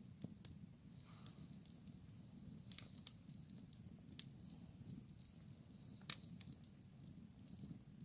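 Wood campfire crackling faintly in a steel fire ring: a low steady flame rumble with scattered sharp pops and snaps, the loudest about six seconds in.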